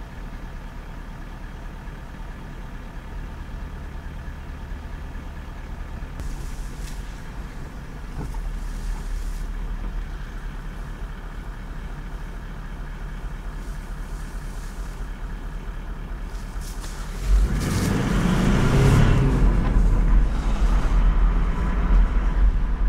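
A car engine idling steadily, then revving louder about seventeen seconds in as the car pulls away and drives on.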